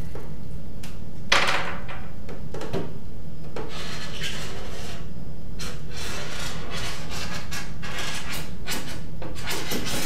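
Scratchy rubbing strokes as an outline is traced around a flexible plastic duct held on a cooler lid, with a sharp click about a second in, over a steady low hum.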